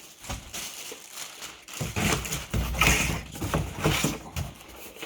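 Cardboard box and packing being handled: irregular rustling and scraping with dull knocks and thumps, busiest in the second half.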